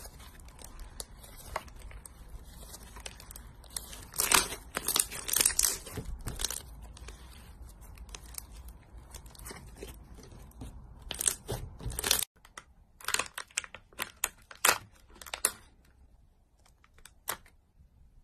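Thick brown slime being stretched, pulled and squished by hand, giving sticky crackling and tearing sounds, louder about four to seven seconds in and again around eleven seconds. It cuts off abruptly at about twelve seconds, followed by a few sharp crinkly clicks and then quiet.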